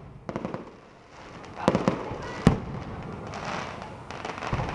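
Aerial fireworks bursting: a quick run of small pops, then two sharp bangs under a second apart, followed by a spread-out crackle as the shells go off.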